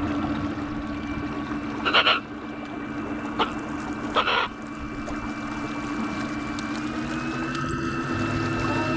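Electric outboard motor pushing a dinghy along, a steady whine over water and wind noise, rising slightly in pitch near the end. Two short bangs come about two and four seconds in.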